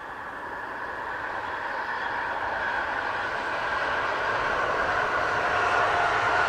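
Pesa Elf EN76 electric multiple unit running past, growing steadily louder as it comes near, with a steady whine over the rumble of the train.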